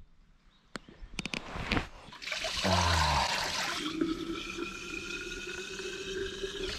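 Water pouring from a fountain's metal spout into a small plastic bottle, with a faintly rising tone as the bottle fills. It starts about two seconds in, after a near-silent stretch with a few clicks.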